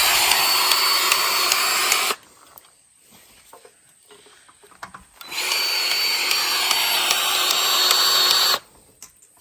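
Powered grease gun motor running in two steady runs of about three seconds each, with a high whine, pumping grease into the skid steer's grease fittings.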